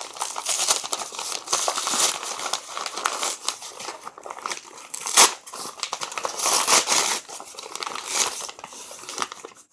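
Paper wrapping crinkling and rustling in repeated bursts as it is pulled off a shipped plant, with one sharp crack about five seconds in.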